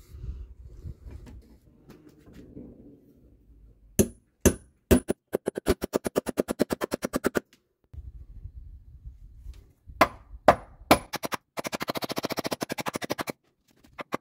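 Hammer striking nails into wooden planks: a few single blows, then runs of rapid, evenly spaced strikes at about ten a second.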